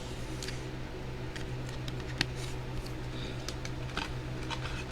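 Faint rustling and small clicks of trading cards and plastic card holders being handled, one sharper click about two seconds in, over a steady low hum.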